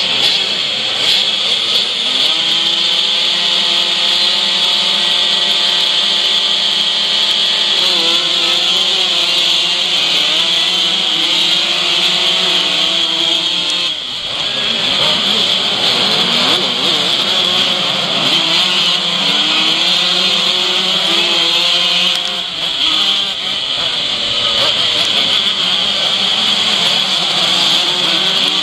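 A pack of classic 125cc two-stroke motocross bikes revving at the start gate, then accelerating away together. The nearest bike's engine rises and falls in pitch as it climbs through the gears, with the rest of the pack mixed in behind.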